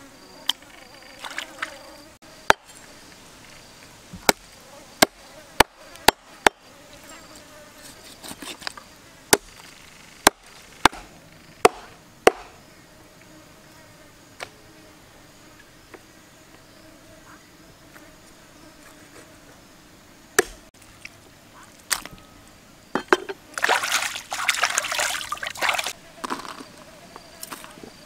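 A run of sharp knife clicks and taps as garlic and ginger are cut by hand, over a steady insect drone. Near the end there is a rustling, scraping burst lasting about two seconds.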